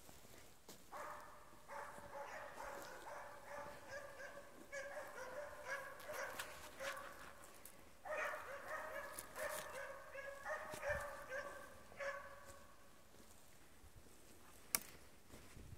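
Spitz hunting dogs barking in quick strings with short pauses, the bay barking of dogs working a badger. The barking dies away near the end, followed by a single sharp click.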